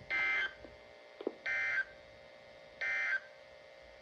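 Emergency Alert System end-of-message data bursts over weather radio: three short, identical bursts of warbling two-tone digital data, about a second and a half apart. They mark the close of the required weekly test transmission.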